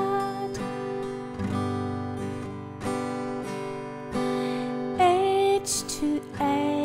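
Acoustic guitar strummed slowly, each chord ringing on between strokes. A singing voice comes in about five seconds in.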